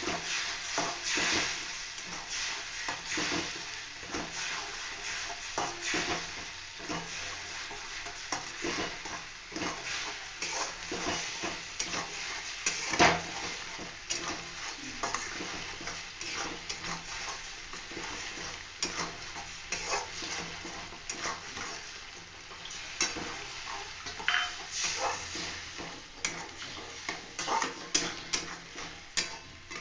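A spatula stirring and scraping a thick poppy-seed paste masala in a metal kadai, with the masala sizzling in oil underneath. There are frequent small clicks of the spatula against the pan, with one sharper knock about halfway through.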